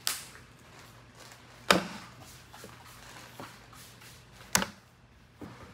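Three sharp knocks, the first right at the start, then about 1.7 and 4.6 seconds in, over a faint steady low hum.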